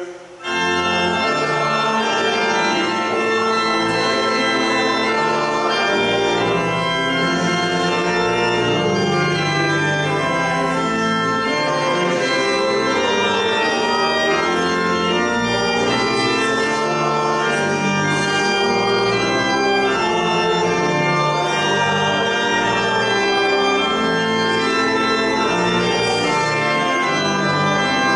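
Church organ playing full, sustained chords, entering suddenly about half a second in and then holding a steady level as the chords change.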